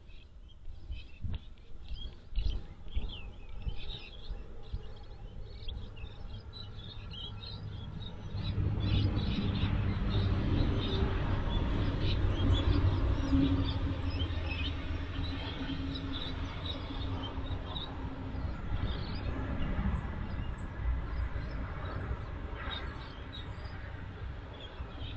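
Small birds chirping over and over outdoors, with a low rumble and faint steady hum that swells about eight seconds in and slowly eases off.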